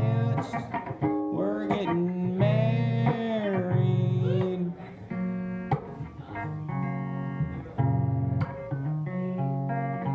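Solo guitar strummed and picked under a man's singing voice, which slides and wavers through long held notes in the first half, then steadier strummed chords.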